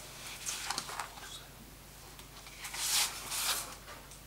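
Sheets of watercolour paper rustling and sliding as they are handled and swapped, in a few short bursts, the loudest about three seconds in.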